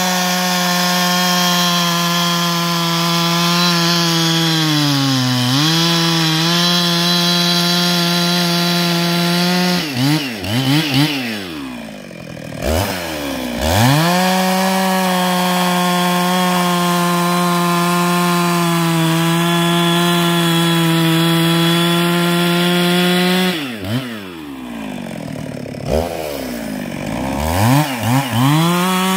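Husqvarna 365 two-stroke chainsaw running at full throttle while cutting through a log, its pitch dipping briefly under load about five seconds in. Twice it drops back to idle, about ten and about twenty-four seconds in, then revs back up to cutting speed.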